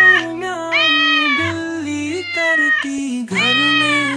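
A cat meowing over a music track, in about four long, drawn-out calls that rise and then fall in pitch.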